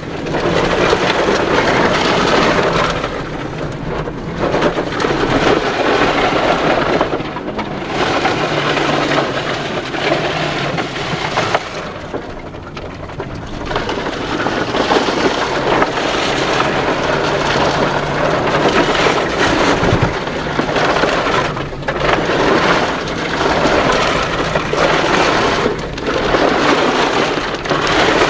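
Inside the cabin of a Nissan Juke on General Grabber AT2 all-terrain tyres driving fast over a rough field track: a loud rumble and rattle of tyres and suspension over bumpy ground, with the engine running steadily underneath. The noise eases briefly about halfway through.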